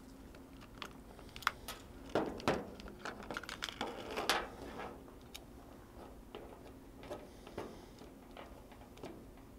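Handling noise: a clear plastic food container and a small NanoVNA antenna analyzer clicking and knocking on a table as the device is lifted out. The knocks come thickest and loudest in the first half, then give way to sparser, lighter clicks as a cable connector is fitted to the analyzer.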